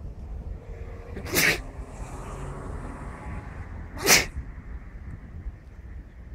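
Two sneezes, about two and a half seconds apart, the second slightly louder, over a steady low rumble.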